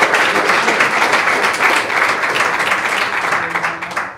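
Audience applauding, dense steady clapping that dies away abruptly near the end.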